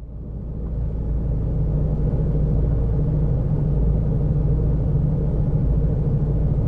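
Low, dark rumbling drone, a horror-style sound effect. It swells in from silence over about the first second, holds steady with a deep hum, and cuts off abruptly at the end.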